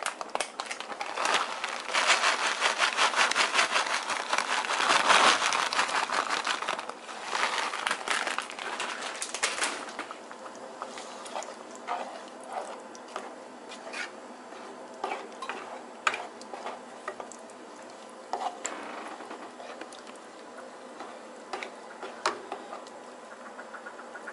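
A plastic bag of shredded cheese crinkling and rustling for about the first ten seconds, then a utensil stirring the cheese into spaghetti and sauce in a pan, with scattered clicks and scrapes against the pan.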